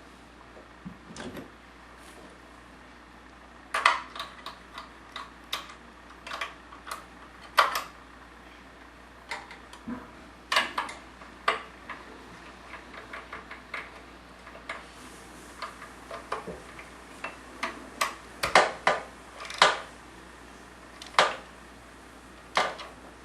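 Irregular metal clicks, clacks and a few sharper knocks of hand tools, a spark plug socket and wrench, being worked while a spark plug is refitted in a small generator engine.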